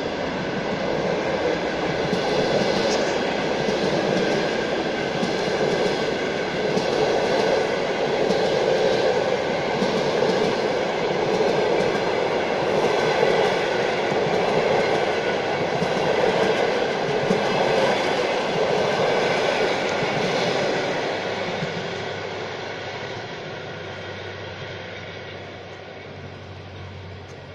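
Passenger coaches of a diesel-hauled train rolling past on the rails, with the wheels clattering over rail joints. The sound fades steadily over the last several seconds as the train draws away.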